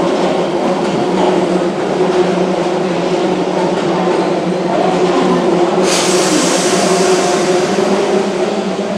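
Keihan 2600 series electric train standing at the platform with a steady hum from its onboard equipment. A sudden hiss starts about six seconds in and carries on.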